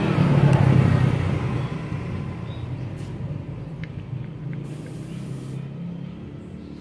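A vehicle engine running, loudest about half a second to a second in and then fading away, with a few light clicks partway through.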